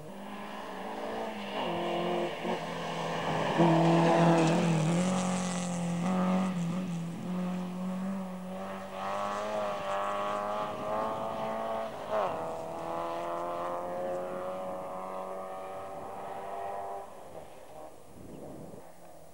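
Rally car at full throttle, loudest about four seconds in. It then climbs through the gears, the engine pitch rising and dropping at each change, and fades away.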